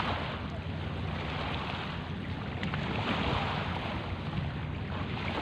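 Wind buffeting the microphone over sea water washing against a stone seawall, swelling and easing every second or two, with a low steady hum underneath.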